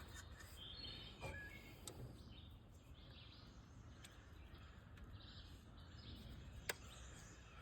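Near silence: faint outdoor background with a few faint bird chirps and one sharp click near the end.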